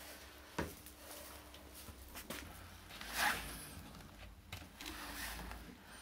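Akita puppies scuffling on a hard floor: faint rubbing and a few light knocks, with a sharp click about half a second in and a short, louder rustle about three seconds in.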